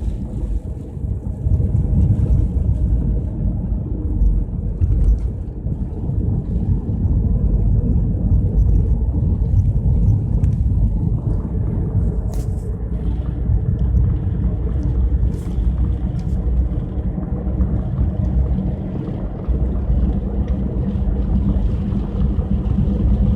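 Car driving along a highway at about 60 km/h, heard from inside the cabin: a steady low rumble of engine and road noise.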